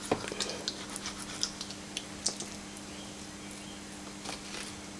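Filleting knife cutting along a red cod's backbone on a wooden board: irregular small clicks and scrapes as the blade works against the bones, thickest in the first couple of seconds, over a steady low hum.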